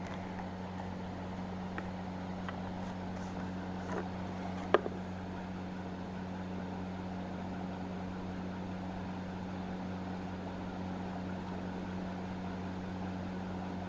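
Steady low machine hum with a faint hiss under it, broken by a few light clicks, the sharpest a little before five seconds in.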